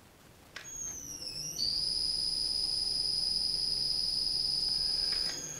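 The Mastodon coring machine's electric motor, run through a frequency inverter, is switched on with a click and starts up: a high-pitched inverter whine that glides down for about a second, then holds steady over a faint motor hum, shifting and dropping in level near the end.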